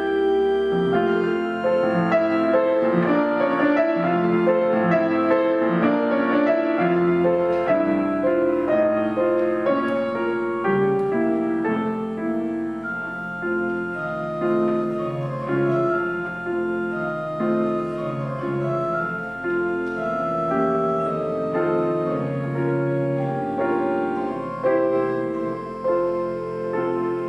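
Organ and piano playing a slow, lyrical classical piece together, the organ holding long sustained notes under the piano's melody.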